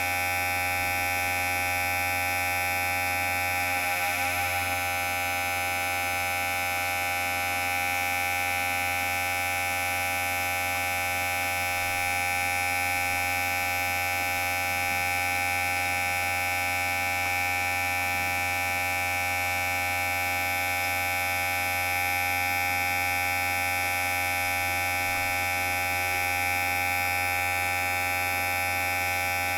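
Electric hair clipper running with a steady, unbroken buzz.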